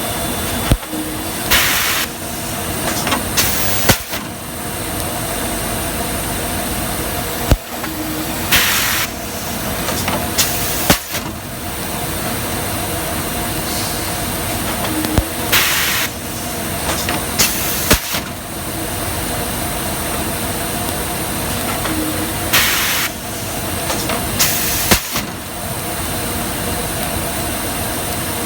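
Garbage-bag cutting machine running with a steady hum. It works in a repeating cycle about every seven seconds: two short hisses about two seconds apart, with sharp clicks in between.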